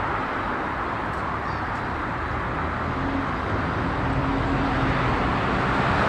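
Single-deck city bus driving along a street, its engine running under tyre and traffic noise, growing a little louder as it draws close.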